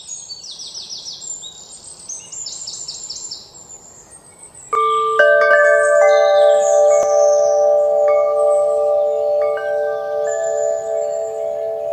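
Birds chirping in quick high trills; about five seconds in, chimes are struck several times at different pitches, each note ringing on and overlapping the others while the birdsong continues.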